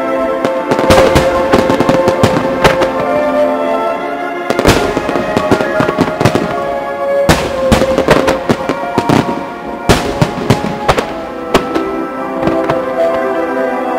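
Fireworks going off in rapid volleys of sharp bangs and crackles, with several especially big booms about a third, a half and two thirds of the way in. They are heard over music playing for the synchronized display.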